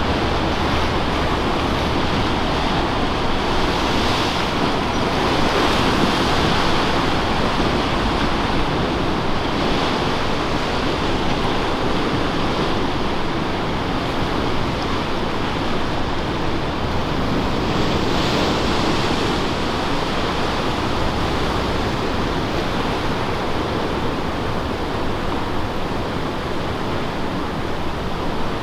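Ocean surf breaking steadily, swelling louder several times as waves break, with wind buffeting the microphone.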